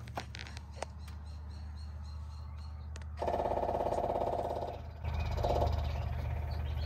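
Cummins Onan 5500 gasoline RV generator cranked by its starter for about a second and a half, then catching and settling into a steady run. This is the first start after its fuel pump was replaced to cure fault-code-36 shutdowns, and the running engine sounds really good.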